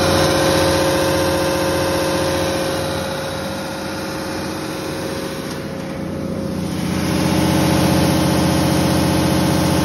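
Cummins 6CT8.3-G2 six-cylinder turbocharged diesel engine of a 125 kW generator set running at a steady governed speed, the pitch holding constant. It fades somewhat in the middle and comes back louder near the end.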